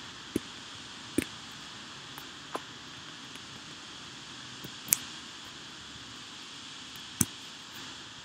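A handful of sharp, isolated clicks from someone working a computer, spaced irregularly, the loudest about five seconds in, over a steady hiss of room and microphone noise.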